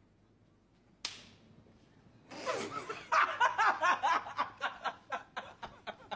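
A single sharp hit about a second in, then a young man laughing hard in a quick, pulsing ha-ha-ha that runs on to the end.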